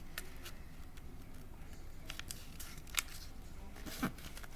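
A sheet of printer paper being folded and creased by hand: scattered light crackles and taps of the paper over a steady low hum.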